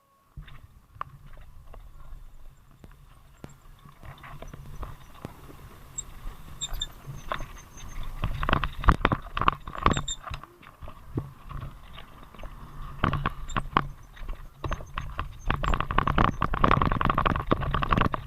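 Mountain bike rattling and clattering over a rough, bumpy road, with a steady low rumble underneath. The knocks come thick and fast and grow louder from about eight seconds in.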